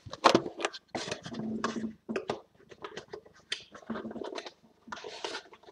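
Cardboard trading-card boxes being handled and set down on a table: a run of short, irregular taps, scrapes and rustles.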